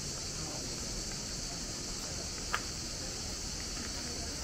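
A steady, high-pitched chorus of cicadas buzzing, with one short sharp click about halfway through.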